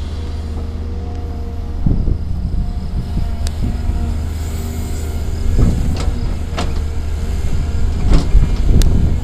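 CASE crawler excavator's diesel engine running under load, with a steady whine over it, as it digs, swings and dumps a bucket of sand into a dump truck. Several sharp metallic knocks from the bucket and its linkage, starting about two seconds in and most frequent near the end.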